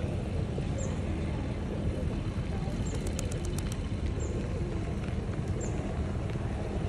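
Steady traffic rumble from motorbikes and cars on a busy street. A few sharp clicks come about three seconds in.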